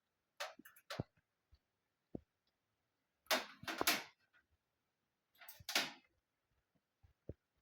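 Faint handling noise: a few short rustles and light knocks, about a second in, in the middle and near the end.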